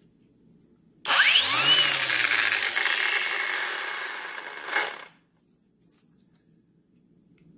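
Ridgid 18V cordless angle grinder switched on about a second in, its motor whine rising as it spins up, then running free with no load for about four seconds before cutting off suddenly.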